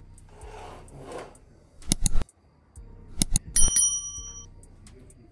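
Kitchenware clattering: a pair of sharp knocks about two seconds in, then more knocks and a metallic clink that rings briefly and fades.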